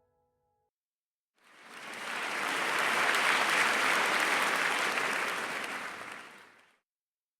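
Audience applause that fades in a little over a second in, swells, then fades away near the end.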